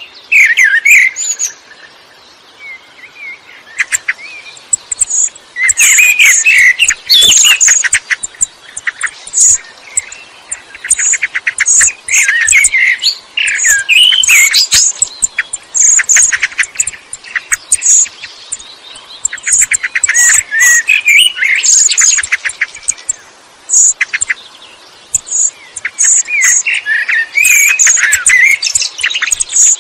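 Male Eurasian blackbird singing: repeated phrases of low, fluting warbled notes, each followed by high, thin, squeaky twittering, with short pauses between phrases.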